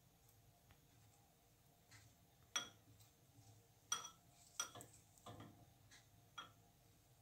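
A spatula stirring thick charcoal-gelatin paste in a bowl, knocking against its side: about half a dozen light clicks and knocks, starting about two and a half seconds in.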